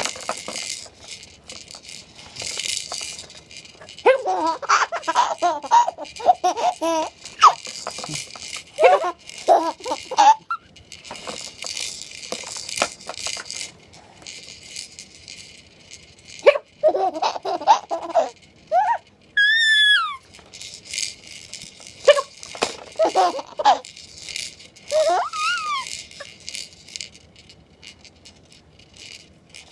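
Baby laughing in repeated bursts while bouncing in a baby bouncer, with one high squeal about two-thirds of the way through. An on-and-off rattling runs between the laughs.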